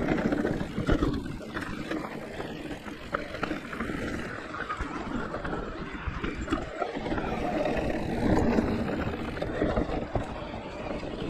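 Giant Reign E+ electric mountain bike riding a dirt trail: uneven rumble of tyres over the ground, with frequent small rattles and knocks from the bike.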